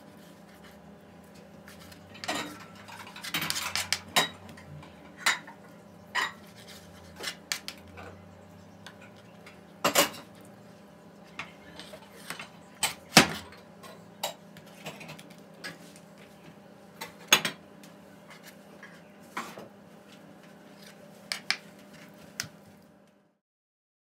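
Kitchen knife cutting raw chicken breast on a plastic cutting board: irregular knocks of the blade striking the board, over a steady low hum. The sound cuts off abruptly about a second before the end.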